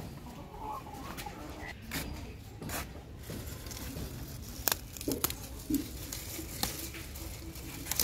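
Hens clucking softly a few times. About halfway through come several sharp snaps and rustles as leaves are picked by hand from leafy plants.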